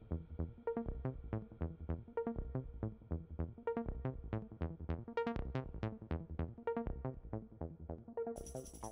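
Background electronic music with a steady beat; about eight seconds in, a bright high layer comes in on top.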